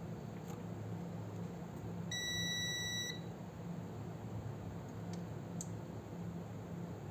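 A single electronic beep, one steady tone lasting about a second, starts about two seconds in over a steady low electrical hum. Two faint clicks follow a few seconds later.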